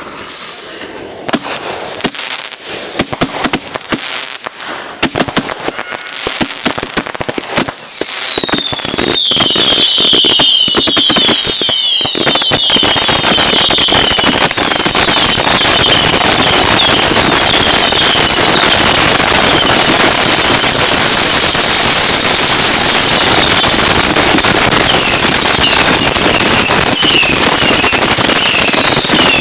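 Backyard consumer fireworks finale at close range: rapid sharp bangs for the first few seconds, then from about seven seconds in a dense, continuous barrage of bangs and crackle. Repeated short whistles falling in pitch cut through the barrage.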